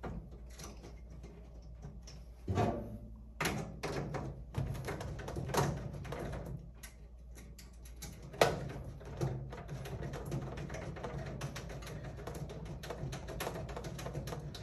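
Scattered light metal knocks and clicks from hands fitting a hex nut and lock washer onto a bracket screw inside a steel bill changer cabinet, over a steady low hum. The sharpest knocks come about two and a half seconds in and again near the middle.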